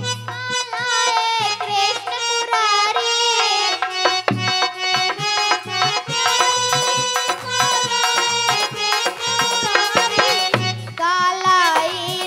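Instrumental interlude of a devotional bhajan: a hand-drum rhythm under a held melody instrument, with a girl's singing voice coming back in near the end.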